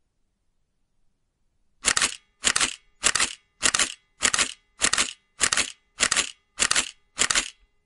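Nikon DSLR shutter firing ten times in a steady series, a little under two shots a second. Each release is a quick double clack of the mirror and shutter.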